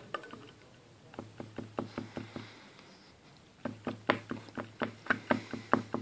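Water-soaked Zippo lighter, lid open, knocked and shaken to drain the water out of it. Its metal case gives two runs of quick knocks, about four a second, and the second run is louder.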